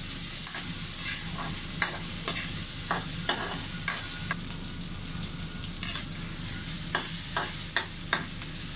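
Onion, ginger and green tomato sautéing in hot oil in a wok, with a steady sizzle. A spatula scrapes and knocks against the pan many times in an uneven stirring rhythm.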